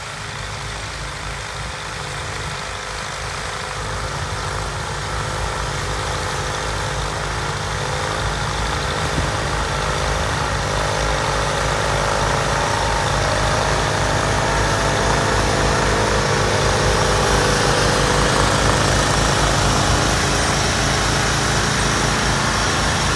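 Garden tractors' Kohler engines running steadily under load while pulling moldboard plows through the soil. The sound grows steadily louder as the tractors come closer.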